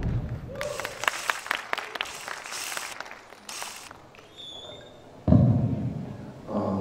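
Scattered hand-clapping from a small audience as a dance number ends, irregular claps that die away after about three seconds. About five seconds in, a sudden loud thud.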